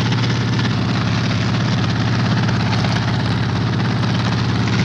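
Helicopter in flight: engine and rotor running with a steady low hum and a hiss above it.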